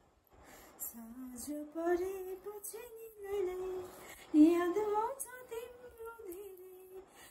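A woman singing a song solo without accompaniment while wearing earphones, so she cannot hear her own voice; the melody starts about a second in, slides between notes, and has one louder note a little past four seconds in.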